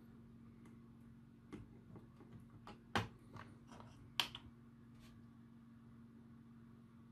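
Several sharp plastic clicks from a handheld component tester being worked: the ZIF socket lever clamping a resistor and the test button being pressed, the loudest two clicks about a second apart near the middle. A faint steady hum lies underneath.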